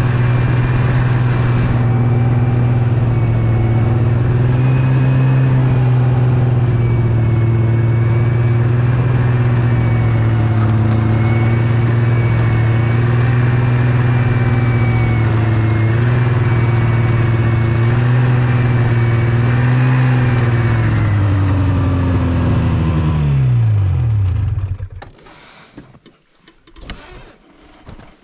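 Yamaha Venture snowmobile engine running steadily, its pitch rising and falling slightly. About 23 seconds in the pitch drops quickly and the engine stops, leaving only a few faint scattered noises.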